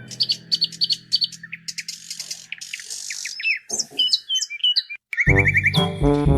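Birds chirping in quick, varied high calls and short whistles. About five seconds in, loud music starts.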